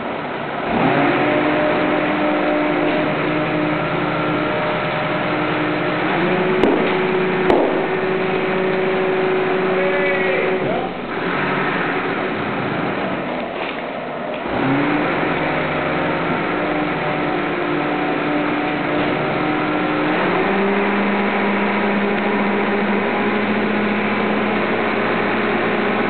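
Fuji Sharyo press-type garbage truck on a Mitsubishi chassis running its rear packer. The engine revs up to drive the hydraulics and a steady tone holds while the press compacts the bags, with two sharp clanks about seven seconds in. The engine eases off around eleven seconds, then revs up again near fifteen seconds for a second press stroke.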